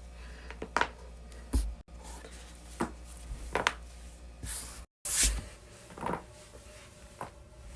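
Neck and back joints cracking during chiropractic adjustments: a series of sharp pops, about eight in all, with two sudden dropouts where clips are spliced together.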